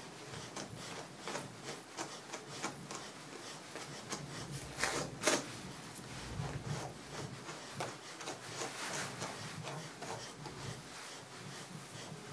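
Grooming brush raked again and again through a dog's matted curly coat, a series of short scratchy strokes, with two louder ones about five seconds in.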